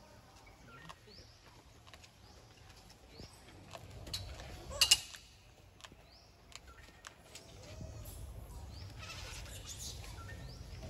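A baby monkey gives one short, loud squeal about five seconds in. Short rising chirps repeat every second or two in the background.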